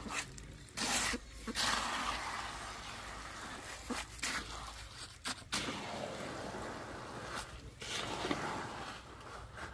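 Wet concrete being raked and worked with a hoe: repeated wet scraping strokes, each starting sharply and fading away, every second or two.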